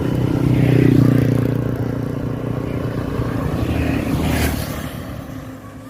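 A motor vehicle engine running, loudest about a second in and then fading away.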